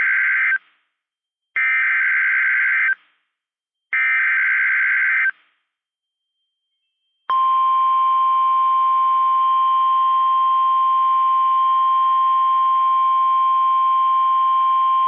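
NOAA Weather Radio emergency alert. It opens with the end of one burst of the SAME digital header data, a harsh buzzing screech, followed by two more bursts with short silences between them. About seven seconds in, the steady 1050 Hz warning alarm tone starts and holds, signalling that a warning is about to be read.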